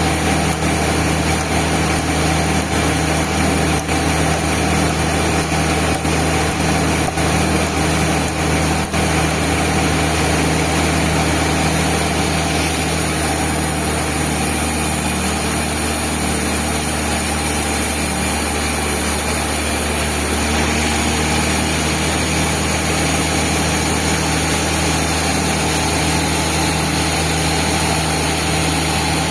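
Band sawmill running with a steady mechanical drone and an even hiss.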